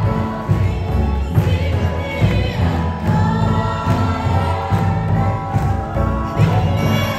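Gospel worship music with a steady bass beat and many voices singing together.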